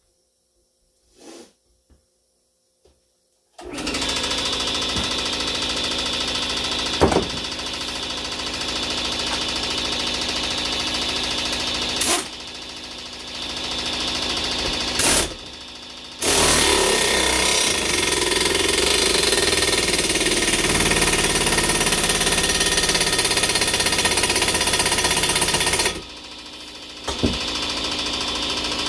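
Impact wrench hammering in long runs, driving the bolt of a Lisle 34400 exhaust pipe expander to spread its dies inside a steel exhaust pipe. It starts a few seconds in and pauses briefly three times.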